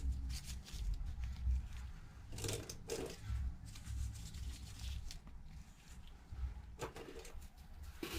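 Handling noise: scattered rustles, light clicks and dull knocks of objects being moved about.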